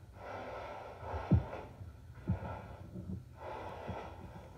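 A woman breathing heavily and sniffling in three long, shaky breaths, heard through a television's speaker. Two dull thumps come about a second in and just past two seconds, the first the loudest sound.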